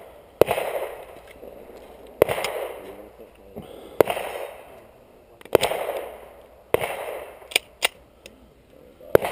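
Pistol shots fired one at a time during a timed stage, six loud shots roughly one to two seconds apart, each trailing off in an echo. Two fainter, sharper cracks come close together between the last two shots.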